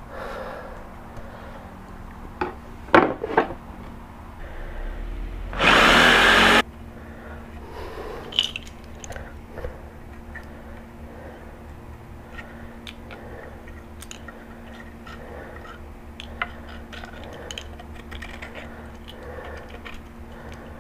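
Small hand blade scraping and cutting through a thick plastic cutting board in short strokes, heard as faint scattered clicks and scrapes. About five and a half seconds in, a loud burst of noise lasts about a second and stops abruptly.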